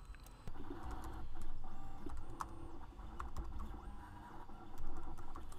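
Computer keyboard keys clicking as a short command is typed, a handful of separate keystrokes over a faint low hum.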